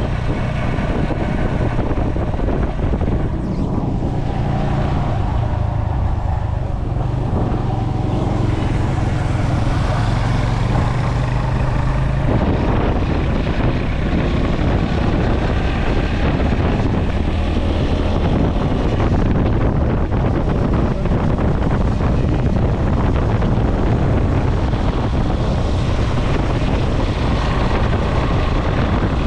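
Motorcycle engine running under way, with wind buffeting the microphone. The engine's steady low note is plainest for the first twelve seconds or so, after which a broader wind-and-road roar takes over.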